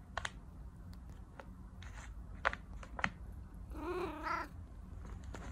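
A cat shifting about inside a small plastic basket, with a few sharp light clicks and scrapes, then one short wavering meow about four seconds in.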